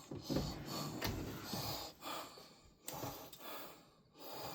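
A person breathing close to the microphone, in several uneven puffs of breath.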